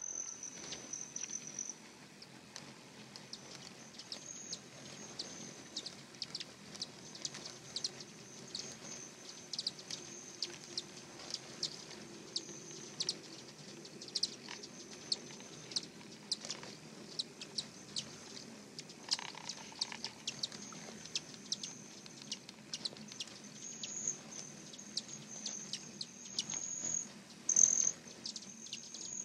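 Hummingbirds buzzing and chipping: a high, thin trill that comes and goes, with many short sharp chips throughout and a louder burst near the end.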